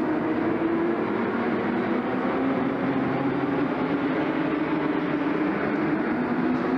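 Racing kart engines running on the track, several engines overlapping in a steady drone whose pitches drift slowly down and back up.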